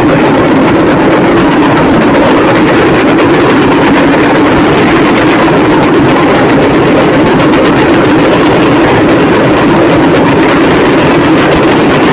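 Dense, unbroken roar of a huge crowd cheering and shouting, very loud throughout.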